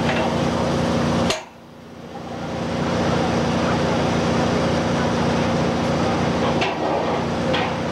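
Metal floodgate planks knocking as they are set into place between the wall posts, over a steady engine hum. A sharp click about a second in is followed by a brief drop in the sound, which then comes back.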